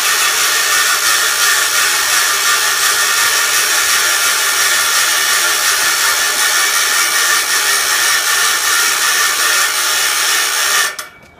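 Gravity-driven generator and its drive train running with a loud, steady mechanical whir under a load of light bulbs, which cuts off suddenly near the end.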